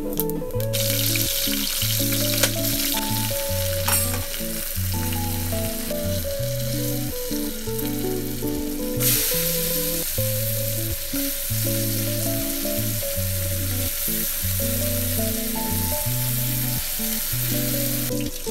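Hot oil sizzling in an aluminium pressure cooker as whole spices fry, growing much louder about halfway through once sliced onions are in the pot. Background music with a steady bass line plays underneath.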